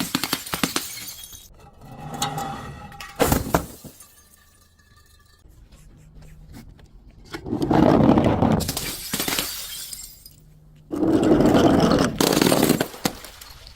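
Glass bottles breaking and being crushed: loud crunching, shattering surges near the start, around 8 seconds in and again around 11 to 13 seconds, with a sharp crack just after 3 seconds and smaller clinks and crackles between.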